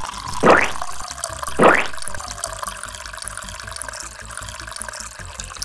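Orange gel water beads poured into a clear glass blender jug. It starts with three short, loud pours that rise in pitch, like a vessel filling, then settles into a steadier wet trickle and patter.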